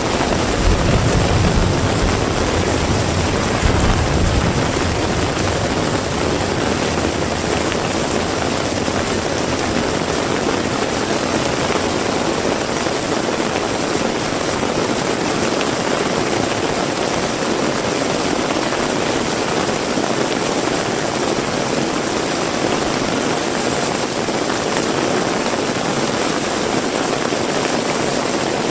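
Heavy rain falling steadily, with a low rumble during the first few seconds that then fades into the rain.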